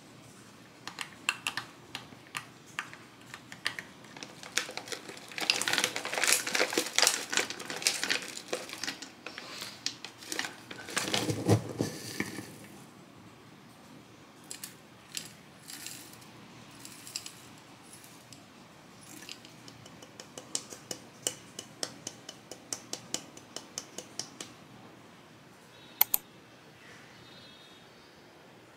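A metal spoon clinking and scraping against a glass dessert cup and a glass jar as Greek yogurt and granola are spooned into the cup: many small clinks, with a stretch of dense scraping and rustling early on. Near the end comes one sharp clink with a brief ring.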